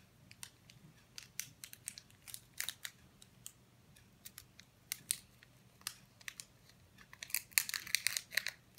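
Small orange candy wrapper being worked open by fingers: irregular crinkles and crackly ticks, thinning out in the middle and coming in a busy cluster near the end.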